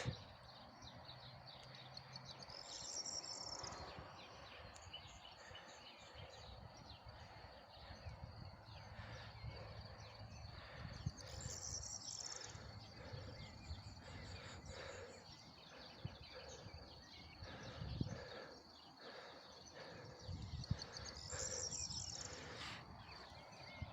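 Quiet outdoor natural ambience: a steady high-pitched insect drone under a general hush, with a short, higher call that repeats about every nine seconds and a few faint knocks.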